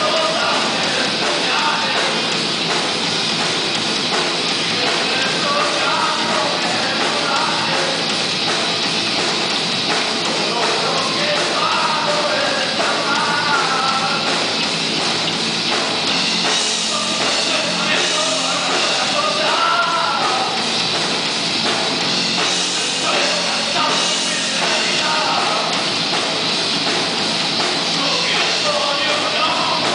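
Live rock band playing a song: electric guitar, electric bass and drum kit together at a loud, even level.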